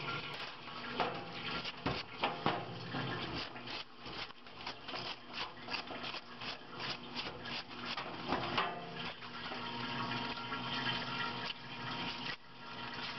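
Water running into a stainless steel sink while a wire brush and scrub pad clean the oily metal parts of a waste-oil heater's preheater, with many short scrubbing and clinking sounds over the steady water noise.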